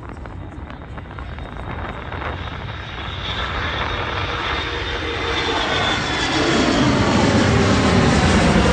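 Airliner engines passing close, growing steadily louder through the whole stretch, with faint whistling tones sliding slowly down in pitch as the aircraft nears.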